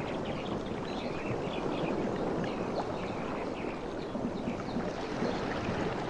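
Ocean waves washing on a beach, a steady rushing wash, with many short high chirps above it.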